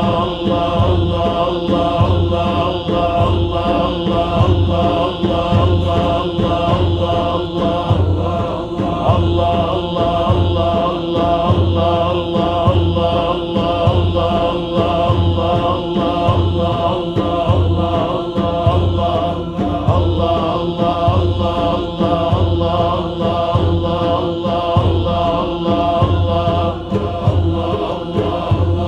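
Naqshbandi zikr: a group of men chanting a short devotional phrase over and over in unison, in a steady rhythm with a deep pulse about three times every two seconds.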